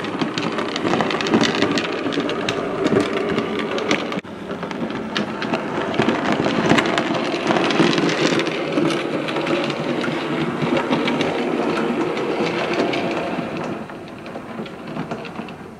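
Steam locomotive running past, a dense steady rush of exhaust and wheel clatter that fades away near the end.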